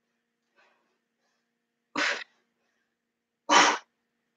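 A woman's hard exhalations while doing push-ups: two short, sharp puffs of breath about a second and a half apart, one with each repetition.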